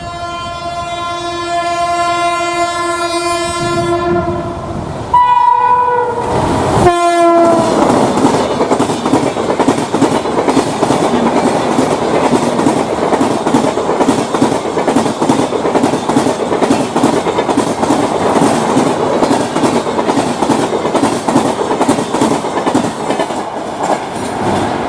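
WAP-7 electric locomotive's horn sounding a long steady blast, then a second blast whose pitch drops as the locomotive passes about seven seconds in. A high-speed Shatabdi Express rake then rushes past with rapid, rhythmic wheel clatter over the rail joints.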